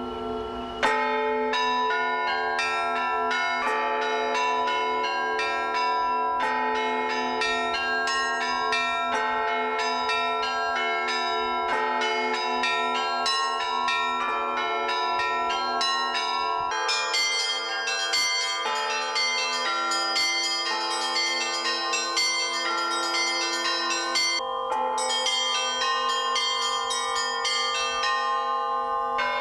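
A peal of church bells: bells of several sizes struck in quick succession, with small high bells chiming rapidly over the steady hum of larger bells. A strong strike about a second in opens the peal, and the pattern changes about 17 seconds in as more high bells join.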